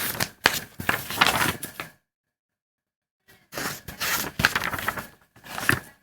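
Paper pages being flipped: two runs of rustling and flicking paper, each about two seconds long, with a gap of dead silence between them.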